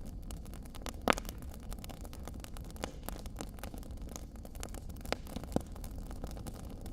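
Wood fire crackling in a stone fireplace: scattered sharp pops, the loudest about a second in and two more shortly after five seconds, over a steady low background of the burning fire.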